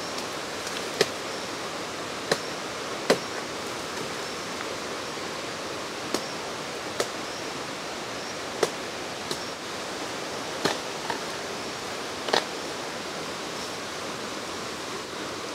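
About ten sharp knocks and cracks at irregular intervals as young bamboo shoots are chopped and broken off, over a steady rushing hiss.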